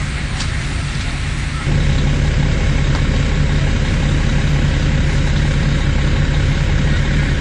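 Fire apparatus diesel engine running steadily at high idle to drive the pump: a constant low drone under a steady hiss. It steps up louder about two seconds in.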